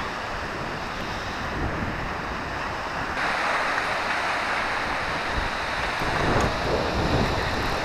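Wind buffeting the microphone over choppy river water, a steady noisy rush with no engine or voice. About three seconds in it jumps abruptly to a louder, brighter rush.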